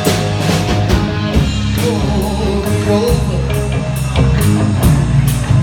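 Rock-style band music: a drum kit keeping a steady beat of about two strokes a second under guitar, in a stretch of a cowboy song with no lyrics sung.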